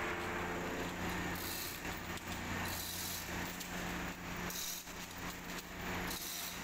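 Caterpillar D5K2 dozer's diesel engine idling with a steady low hum, under repeated metallic rattling and clicking and short bursts of hiss about every second and a half.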